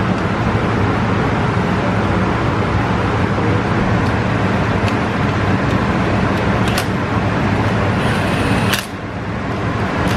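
A steady, loud machine hum with a low drone, dipping briefly near the end, with a few faint clicks.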